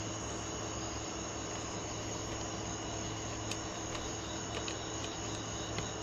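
Steady background hiss and hum with a high steady whine, and a few faint light clicks in the second half, as small metal parts are fitted onto an eBike's front axle by hand.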